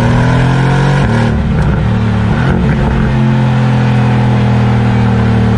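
Sports car's engine and exhaust droning at a steady note, sinking slightly in pitch in the first second and then holding level.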